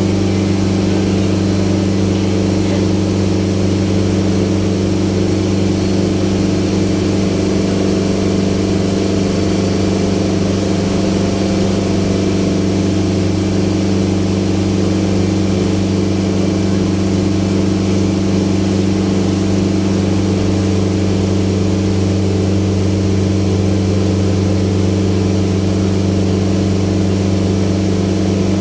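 Ferry boat's engine running at a steady, unchanging speed, a loud even drone heard from on board.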